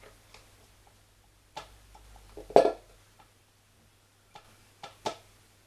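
A few scattered clicks and knocks from washing-machine door hinge parts being handled and fitted together, with one louder knock about halfway through.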